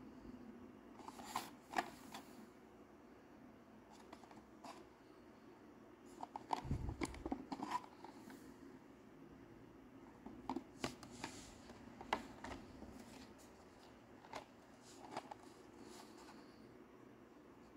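Die-cast toy car blister packs being handled: the plastic blisters and cardboard backing cards click and crinkle in the hands in scattered short bursts. About seven seconds in there is a quick cluster of clicks with a dull bump.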